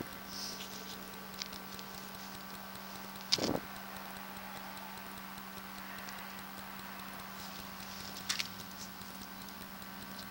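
Steady electrical hum from the sewer inspection camera's recording system, with scattered faint clicks and a short knock about three and a half seconds in.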